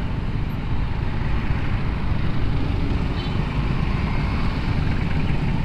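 Vespa Sprint S scooter's single-cylinder four-stroke engine running steadily at low speed, mixed with the surrounding noise of dense city traffic.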